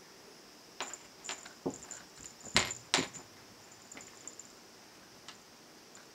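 Several sharp taps and knocks as a cat plays with a furry wand toy on a piano's lacquered lid, clustered in the first half, the loudest two about half a second apart near the middle, then a few faint ticks.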